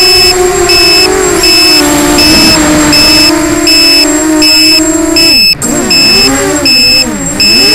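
Eachine EC250 quadcopter's brushless motors and propellers whining steadily in flight, with a high two-tone beep repeating about every three-quarters of a second. About five and a half seconds in, the motors cut out for an instant, their pitch drops, then wavers up and down as the throttle comes back.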